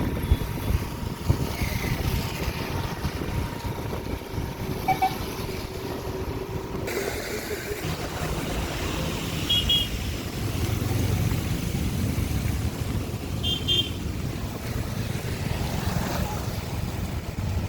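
Rumbling noise of motor vehicles running, with a few brief high beeps.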